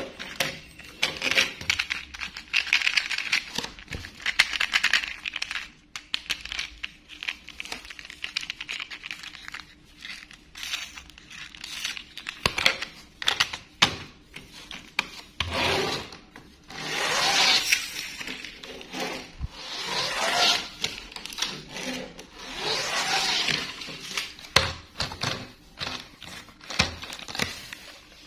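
Small plastic toy trains handled and pushed along a tabletop: irregular clicks and scrapes, with a few longer swishing scrapes in the second half.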